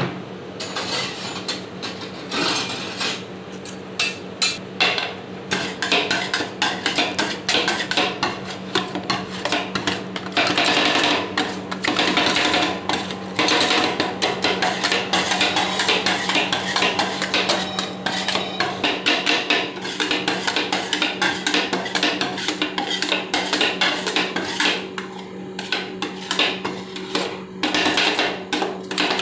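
Metal spatulas rapidly chopping and scraping ice cream mix on the steel cold plate of a rolled-ice-cream machine, a fast, irregular clacking of metal on metal as the base freezes. A steady low hum runs underneath.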